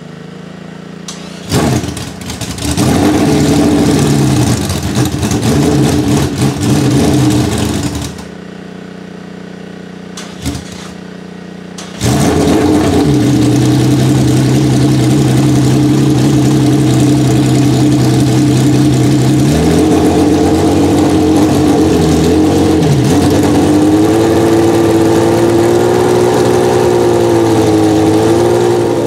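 1972 BRM P180's 3.0-litre 60-degree V12 racing engine being started: it catches about a second and a half in and runs unevenly, the revs rising and falling, then cuts out about eight seconds in. It is started again about four seconds later and settles to a steady idle, with the revs lifted and eased several times near the end.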